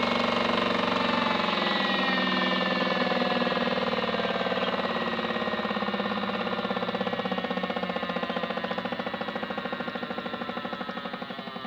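Small electric motor of a Miele W1 toy washing machine, modified for spin, winding down from its spin: a whine whose pitch falls steadily and gets quieter, with a fast pulsing wobble growing as the drum slows.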